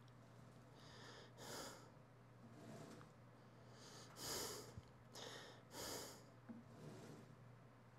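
A man's faint, short breaths during a set of calf presses: several puffs, some in pairs about a second apart, the loudest about four seconds in. A steady low hum runs underneath.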